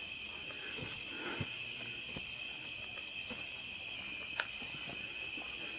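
Steady night chorus of crickets, a continuous high trill, with a few faint ticks and one sharp click about four seconds in.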